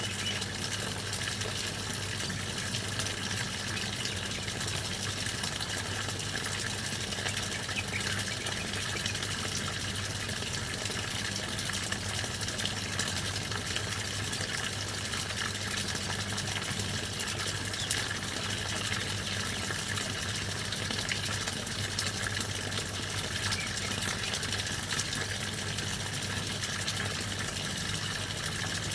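Steady rushing water with an even low hum beneath it.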